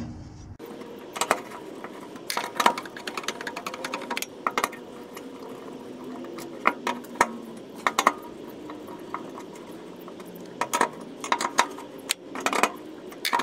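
Scattered bursts of short metallic clicks and clinks from a socket tool turning the nuts down onto the fuel pump hanger's studs, snugging them in turn.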